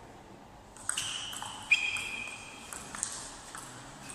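Table tennis rally: the celluloid-type ball clicks off the rackets and bounces on the table in a string of sharp pings, roughly two a second, starting about a second in, each with a short ring.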